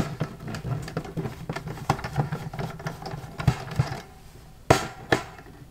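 Screwdriver backing a small screw out of a network switch case: a run of light, rapid ticks and scrapes as the screw turns. Two sharp clicks near the end.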